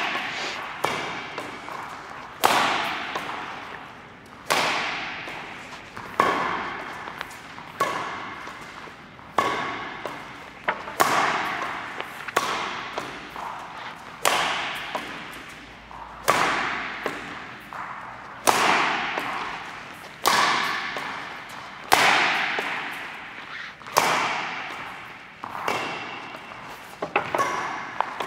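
Badminton rackets hitting a shuttlecock back and forth in a slow drive rally, a sharp crack about every one and a half to two seconds, each followed by a short echo.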